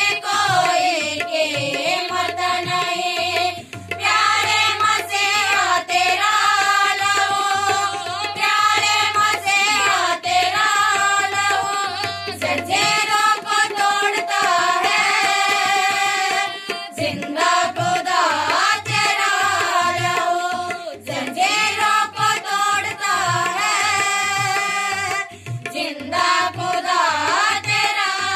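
Group of women singing a Christian worship song in unison, with hand-drum accompaniment keeping a steady rhythm.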